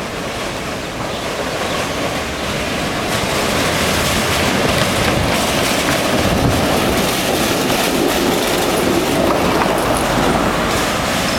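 Vintage tram rolling along street track, its wheels rumbling on the rails, growing louder over the first few seconds as it approaches and passes close by.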